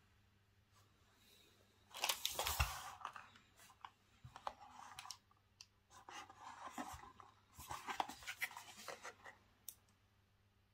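Packaging being torn open by hand: two bouts of tearing and rustling, about two seconds in and again near eight seconds in, with scattered clicks and handling noises between.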